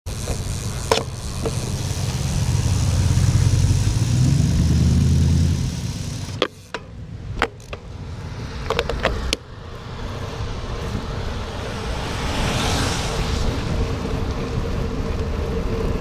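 Road noise from a bicycle riding on rain-soaked pavement: wind rumble on the microphone and hiss from wet tyres. The rumble is heavy for the first six seconds and cuts off suddenly, a few sharp clicks follow, and a rising hiss swells about twelve seconds in.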